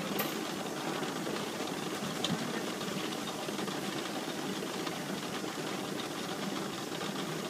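Trdelník rotisserie whose spits turn over the grill: a steady mechanical whir with a light rattle, and a couple of brief clicks.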